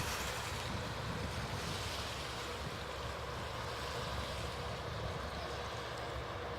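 Steady wind noise on the microphone over a low, even rumble from the passenger ferry's engines and the sea.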